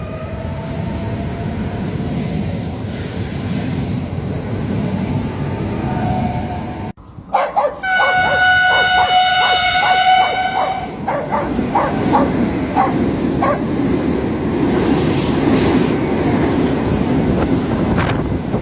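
Train running with a steady rumble. After a sudden cut about seven seconds in, a horn sounds one steady note for about three seconds over regular clicking, and then the rumble carries on.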